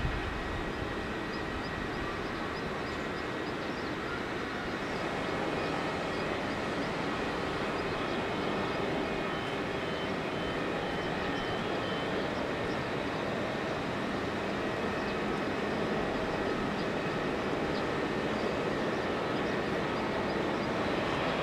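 Boeing 747-8F's four GEnx turbofan engines running at low taxi thrust as the freighter lines up on the runway: a steady distant rumble and hiss that grows slightly louder as the jet turns toward the listener.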